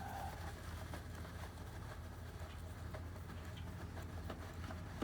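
Faint, scattered small clicks of hand tools working the top screws out of a Murray lawnmower's engine cover, over a steady low hum.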